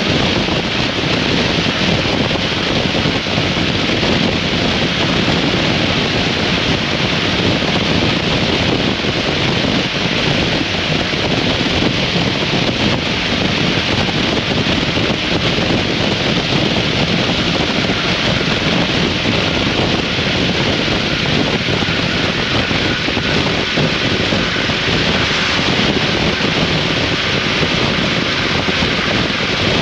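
Steady wind rush over the microphone of a 2003 Harley-Davidson V-Rod motorcycle on the move, with the bike's running noise underneath and no change in speed.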